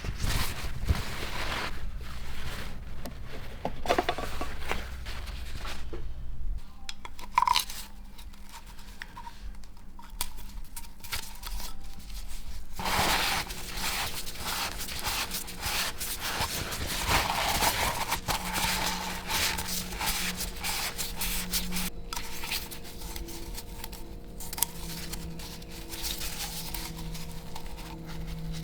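Irregular scraping, rubbing and clicking of hands and tools at work on a car during an oil change. The noise grows busier about halfway through.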